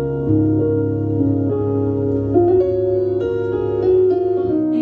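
Keyboard playing slow, sustained chords over a held low bass note that comes in just after the start, the chords shifting every second or so.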